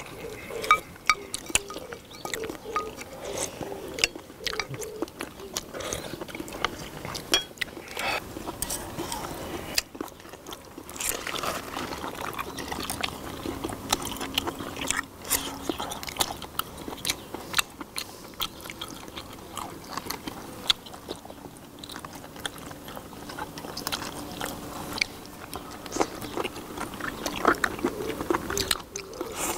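People eating seafood stew at close range: chewing and sucking at shellfish, with many short sharp clicks of chopsticks and shells throughout.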